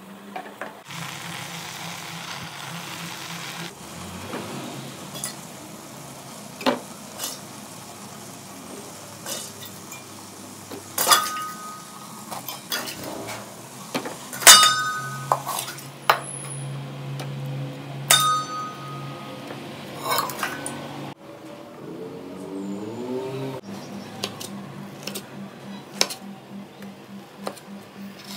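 Aluminium pots, lids, a plate and a knife clinking and knocking as cooked food is handled and cut, with a few sharp metallic clinks that ring briefly. A faint steady low hum runs underneath.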